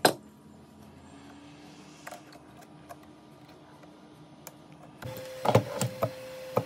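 Clicks and knocks of hand tools and the metal phone clamp on an iPhone back housing: one sharp knock at the start, a few light ticks, and a cluster of louder knocks near the end, over a faint steady hum.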